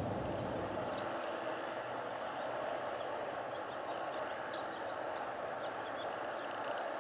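Outdoor background ambience: a steady hum of distant traffic, with two short, high bird chirps, about a second in and again about four and a half seconds in.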